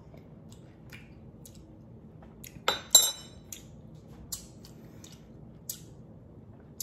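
A metal spoon clinks twice against a hard surface, sharp and ringing, about three seconds in, followed by a few small faint taps and clicks of handling.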